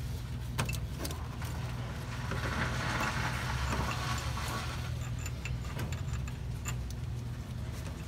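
Small metal clicks and clinks of parts and hand tools being handled at the engine, with a rustling hiss about two to five seconds in, over a steady low hum.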